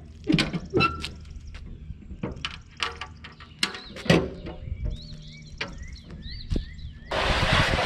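Metal clanks and knocks from the steel rear gate and loading ramps of an equipment trailer as they are unlatched and handled, with footsteps on pavement between them. A louder steady rushing noise starts near the end.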